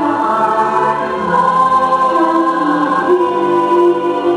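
Choir singing long held chords with music behind it: the show's soundtrack, which changes chord about a second in and again near three seconds.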